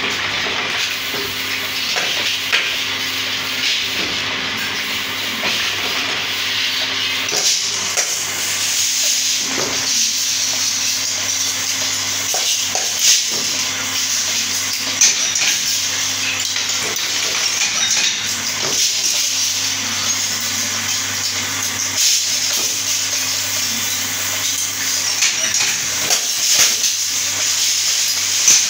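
Small-workshop metalworking for paint-brush ferrules: an electric motor runs with a steady hum and hiss, under irregular clinks and clacks of sheet-metal ferrules being pressed, rolled and handled.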